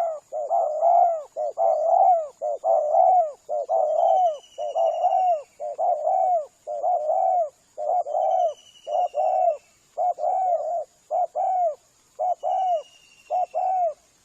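Spotted dove (tekukur) cooing: a long run of repeated coos, each bending in pitch, in phrases with short gaps that become shorter and more broken near the end. A faint steady high tone and a few thin falling whistles sound above it.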